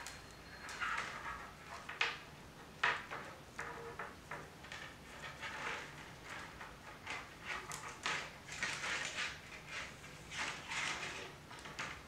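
Willow rods rustling and scraping against each other as they are woven over and under the spokes of a bird's nest, in irregular strokes with a few sharper clicks about two and three seconds in.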